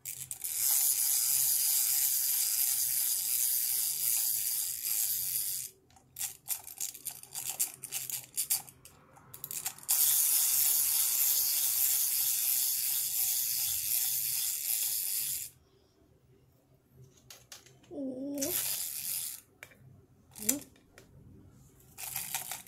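Battery-powered crawling baby doll toy running: its small motor and plastic gears whir in two long stretches of about five seconds each. Scattered clicks and knocks of toys being handled fall between them.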